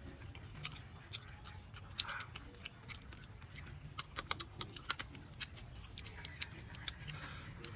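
Eating sounds: light scattered clicks and taps of a fork on fried banana and a metal tray, with a quick run of sharper clicks about four to five seconds in.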